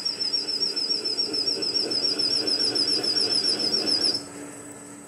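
Metal lathe turning the end of an aluminium workpiece: the cut gives a high whistling squeal that wavers about seven times a second over the spindle's noise. The cut ends just after four seconds in, leaving the lathe's steady hum.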